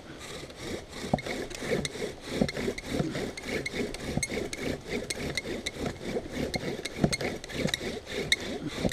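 Bow drill at work: a carved wooden spindle driven back and forth in a wooden hearth board, rhythmic rubbing strokes about two a second with a faint squeak, the friction that builds a coal for fire-lighting.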